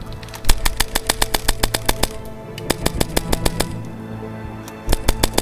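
Airsoft guns firing in quick strings of sharp cracks, about seven shots a second, stopping for about a second and then firing again near the end. Background music plays underneath.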